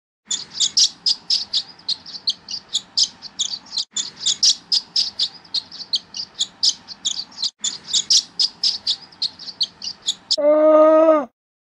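Swallows twittering: a fast run of high, sharp chirps, several a second, broken by two short pauses. Near the end a dromedary camel gives one deep, pitched groan lasting about a second, the loudest sound here.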